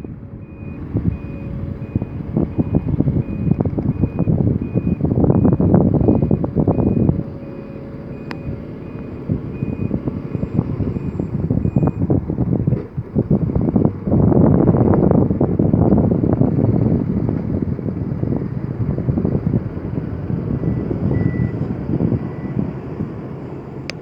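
Heavy diesel machinery running at a construction site, surging loudly twice under load, with a reversing alarm beeping at a steady rate through the first half that stops about halfway through.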